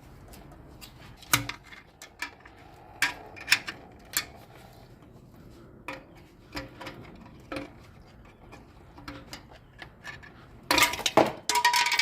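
Metal tool clinking and scraping against the engine as the rear main seal is pried out of a 2014 Ford Transit Connect's 2.0 engine. It starts as scattered sharp clinks, then a quick run of clanking with a ringing metal tone near the end.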